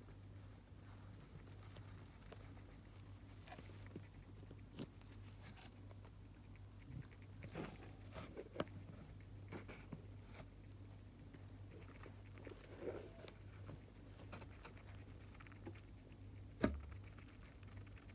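Roborovski dwarf hamster nibbling a piece of broccoli: faint, irregular little crunching clicks, with one sharper click near the end, over a steady low hum.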